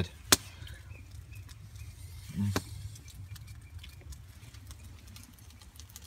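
A single sharp click about a third of a second in, and a brief murmur of a voice about two and a half seconds in, over a steady low rumble with faint scattered ticks.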